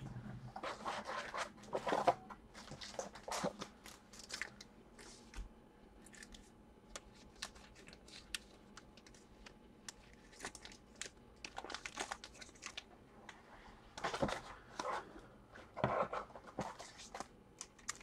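Packaging and wrappers being handled and crumpled, in irregular bursts of crinkling and rustling with scattered light clicks and taps.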